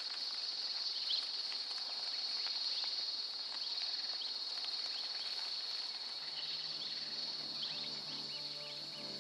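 Steady high-pitched insect chorus, like crickets or cicadas, with scattered short chirps over it. Soft music with held notes comes in about six seconds in.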